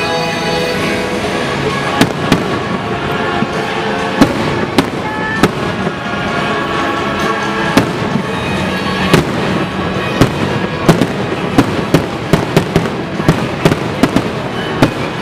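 Fireworks bursting over the show's music soundtrack: sharp bangs, scattered at first and coming in quick succession in the last several seconds.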